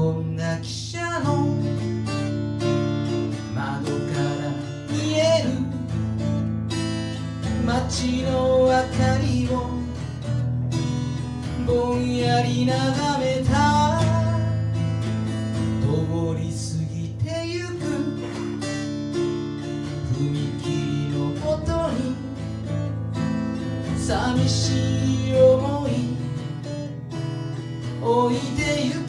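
Steel-string acoustic guitar strummed as a slow song's accompaniment, with a wavering melody line over it.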